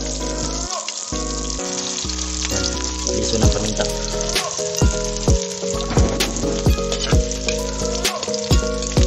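Garlic sizzling in hot cooking oil in a pan, a steady frying hiss, over background music with a steady beat.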